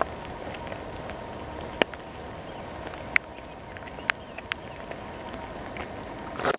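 Steady rain falling, with a few sharp ticks of drops close to the microphone and a brief rustle near the end.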